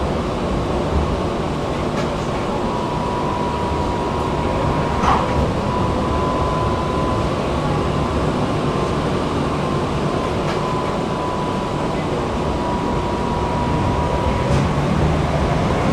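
Tatra T3 tram in motion, heard from inside the car: a continuous rumble of wheels on rail. A steady high whine runs through most of it, and there is a single click about five seconds in.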